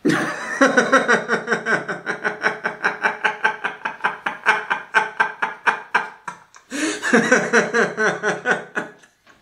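A man laughing hard, in a long run of rapid, evenly spaced "ha" pulses at about five a second. It breaks off briefly about six and a half seconds in, then a second fit of laughter starts.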